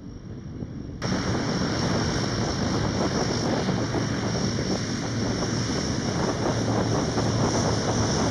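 Lockheed EC-130H Compass Call's four Allison T56 turboprop engines running as the aircraft taxis, with a steady high turbine whine over a low propeller drone. The sound jumps louder about a second in.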